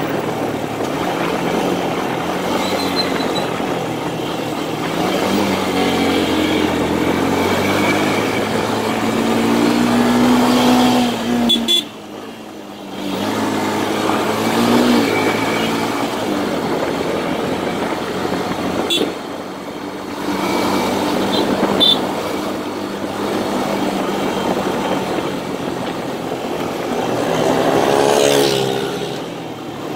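Motorcycle engine running as the bike rides through traffic, its note climbing under acceleration several times and falling off sharply at gear changes, with a sudden dip about twelve seconds in. A steady rush of wind noise lies underneath.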